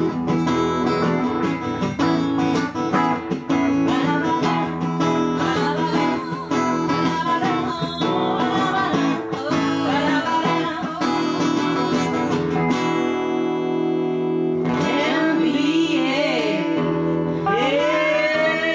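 Live band music without drums: strummed acoustic guitars, settling into a held chord about thirteen seconds in, with women's voices sliding up and down over it near the end.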